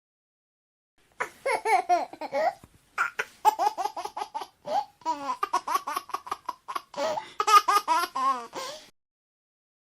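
A baby laughing in quick, breathy bouts of giggles after a second of silence, stopping about a second before the end.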